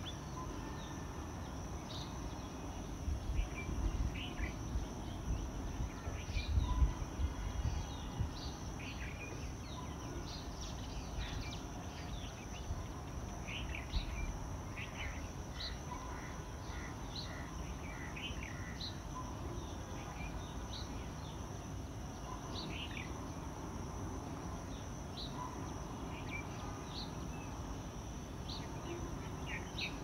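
Outdoor ambience: a steady high insect drone with many short bird chirps scattered throughout. Low rumbling, as of wind on the microphone, comes in bursts about three to eight seconds in.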